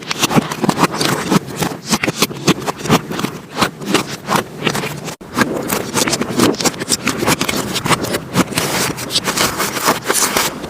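Slime being squished and pressed by hands close to the microphone: a fast, dense run of sticky crackles and pops, with a brief break about five seconds in.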